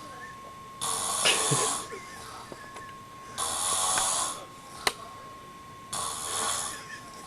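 A sleeping man snoring: three loud, rasping breaths about two and a half seconds apart. A faint steady whine sits under them, and there is a single sharp click near the end.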